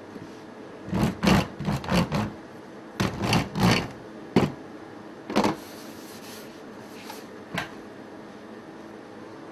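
Wooden rolling pin rolled and pressed over the rim of a fluted metal tart tin on a steel counter, trimming the overhanging pastry: two quick runs of clattering knocks, then a few single knocks, over a steady background hum.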